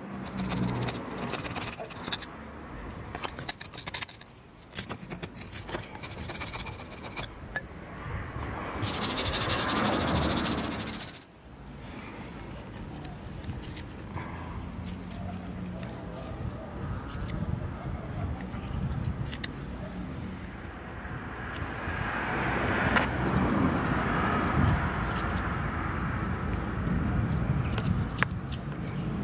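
Cricket chirping in a fast, even pulse, under scattered clicks and knocks of a screwdriver handled against a removed cylinder head. A loud hissing rush lasts about two seconds a third of the way in.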